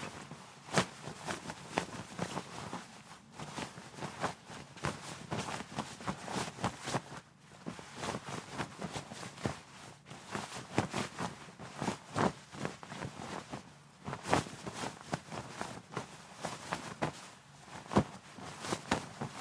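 Cotton shirt fabric being rustled and handled: irregular swishes and crinkles of cloth, with sharper snaps of the fabric every second or so.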